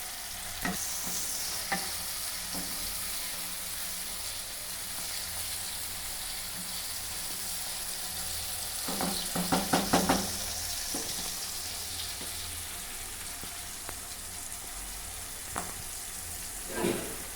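Onions, tomatoes and green chillies sizzling steadily in hot oil in a pan, with a spatula clattering and scraping against the pan as it is stirred, busiest about nine to ten seconds in and again near the end.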